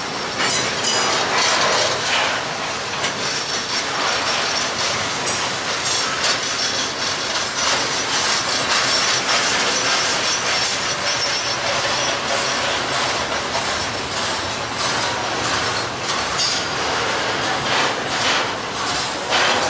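Double-stack intermodal freight train's loaded well cars rolling past: a steady, loud rumble and rattle of steel wheels on rail, with a constant run of clicks as the wheels pass over the track.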